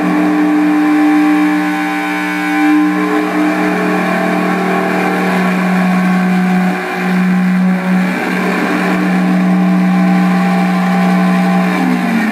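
Southwest Technical Products Ambience Synthesizer droning on two steady electronic tones with a buzzy layer of overtones. The drone dips briefly twice, about seven and eight seconds in, and near the end one tone starts gliding downward.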